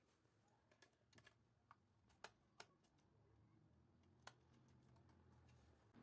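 Near silence with a few faint, sharp clicks scattered through the first four seconds or so.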